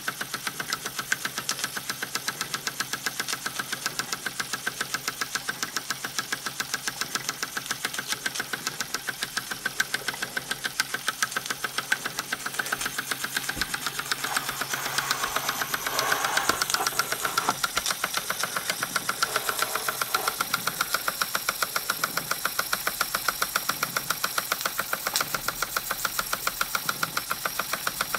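Wilesco R200 toy steam engine running steadily, its single cylinder chuffing in a rapid, even beat. The steam hiss swells for a few seconds around the middle, then eases back.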